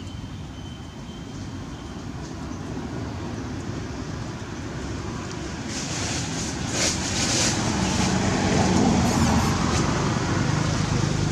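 Low engine rumble, like a motor vehicle approaching, growing steadily louder, with a brief rustling hiss about six to seven seconds in.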